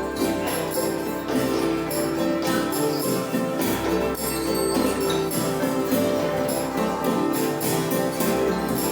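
Improvised acoustic music: held drone tones under repeated struck or plucked notes, with jingling metal percussion on top.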